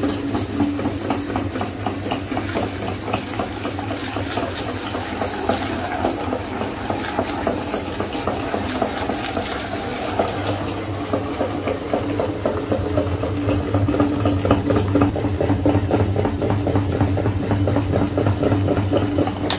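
Electric meat grinder running: a steady motor hum with rapid crackling and squelching as a soft, sticky mix is forced through the plate and extruded. The grinding grows a little louder about halfway through.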